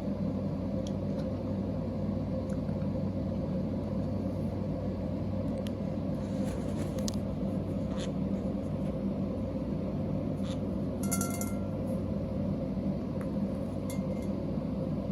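Steady low electrical or mechanical hum, with a few light clicks and taps. About 11 seconds in, a parrot gives one short call.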